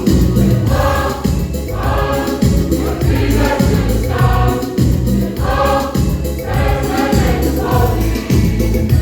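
A mixed youth and children's choir singing a Christmas song in unison over a steady-beat backing accompaniment.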